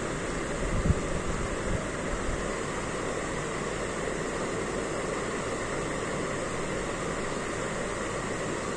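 Steady rushing background noise, even and unchanging, with a few soft low thumps about a second in.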